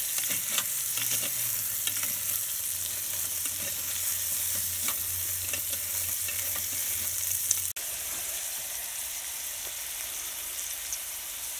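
Diced carrots, celery and meat frying in butter in a Swedish army mess kit pot, a steady sizzle, with a spatula scraping and clicking against the pot as the food is stirred, mostly in the first half. The sound drops out for an instant a little past halfway, then the sizzle goes on a little quieter.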